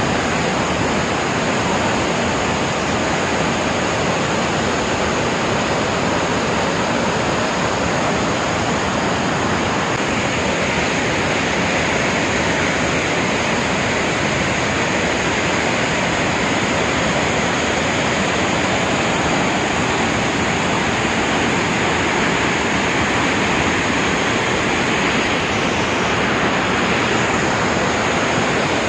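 Dudhsagar Falls in heavy flow: a steady rush of falling water.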